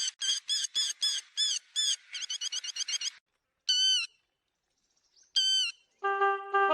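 Lapwing calls: a fast run of sharp calls, about five a second, for about three seconds, then a pause and two single calls. Near the end a different steady pitched tone begins.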